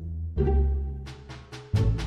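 Background music: low held notes, then a quick run of short notes in the last second.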